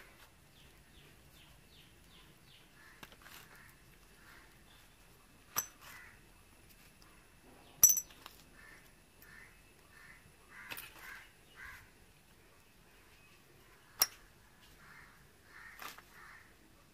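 A bird calling in short repeated notes, in several bouts, with three sharp clinks of metal fork parts being handled, the loudest about eight seconds in.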